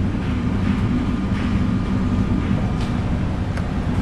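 Steady low rumbling hum of a cargo ship's machinery heard from the wheelhouse, over a rushing noise of wind and sea as the bow drives through heavy storm waves.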